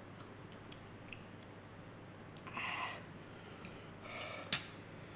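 Two short, hard breaths through the mouth and nose, the kind forced out by the burn of 2x spicy Buldak noodles, with faint clicks of metal forks in the bowl and a sharp click near the end.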